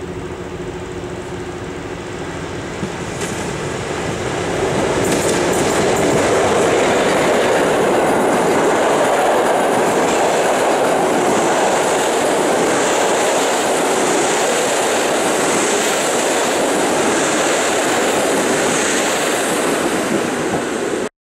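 A TLK express of passenger coaches hauled by an EU07 electric locomotive running past the platform at speed. Wheels rumble on the rails, swelling about four seconds in and holding loud, with a high hiss joining in from around ten seconds.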